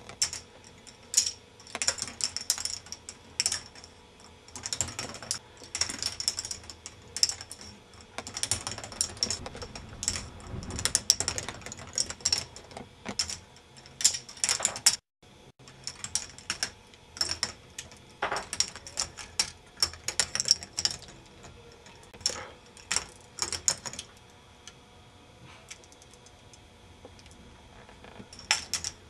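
K'nex ball machine running: plastic balls clattering and rattling through plastic tracks and elements in irregular bursts of clicks. The sound cuts out for a moment about halfway through.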